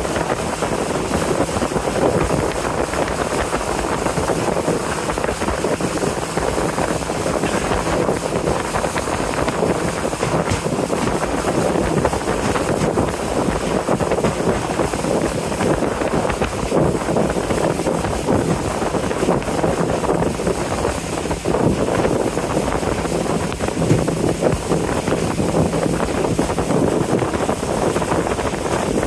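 Riverboat under way at a steady cruise: a constant low engine drone under the rush of water and wind on the microphone.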